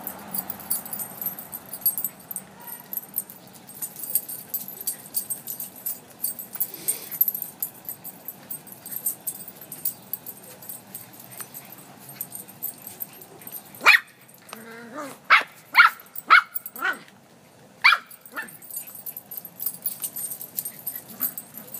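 Small dogs play-fighting: light clicking and jingling, then a quick run of about six sharp, high barks and yips about two-thirds of the way in.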